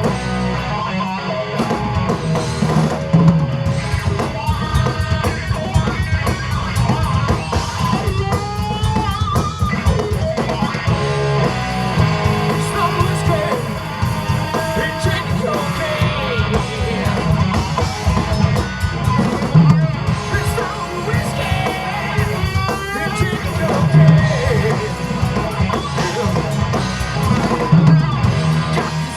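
Live rock band playing: electric guitar, bass and drum kit, with singing.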